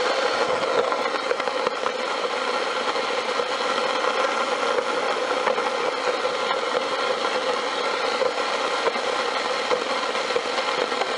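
A radio-controlled model suction excavator truck running: a steady motor hum with continuous light rattling, and a faint whine that rises and falls a couple of times.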